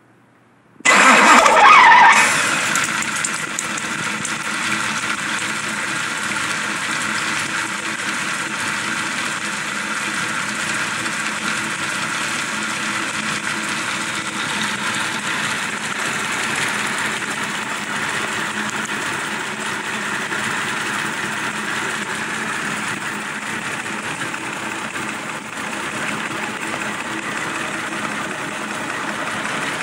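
Nissan L-series inline-six with a home-built crossflow cylinder head starting about a second in. It is loudest for its first second or so, then settles into a steady idle with the rocker gear exposed.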